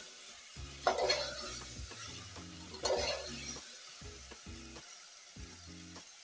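A ladle stirs chunks of elephant foot yam through sizzling masala in a pressure cooker as they fry. There are two louder stirring strokes, about one and three seconds in, and the sizzle fades slowly.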